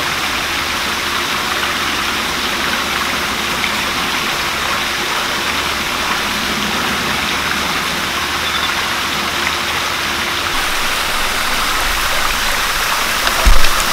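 Corn fritter batter frying in shallow hot oil in a pan: a steady sizzling hiss that grows a little brighter as more spoonfuls go in. A loud thump comes near the end.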